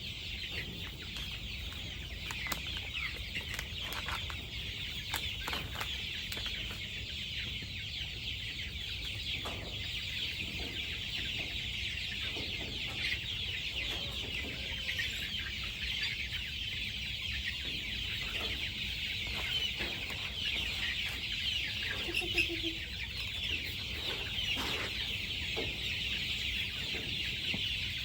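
A flock of chickens calling and clucking: a dense, continuous high chatter with a few short knocks and a brief lower cluck about 22 seconds in.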